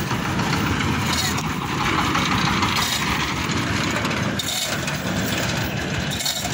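Tractor engine running steadily with a rapid low chugging while it hauls on a tow chain.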